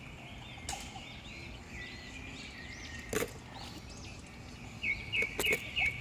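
Songbirds chirping: a run of short arching chirps, then a quick series of bright repeated notes near the end. A few sharp clicks sound over them.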